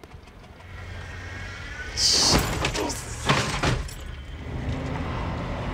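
Car engine running and growing louder, with a brief high screech about two seconds in followed by several sharp knocks over the next second and a half.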